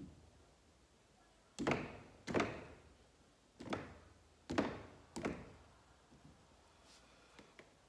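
Mallet smashing wet acrylic paint onto a canvas: a series of dull thuds roughly a second apart, with a few fainter taps near the end.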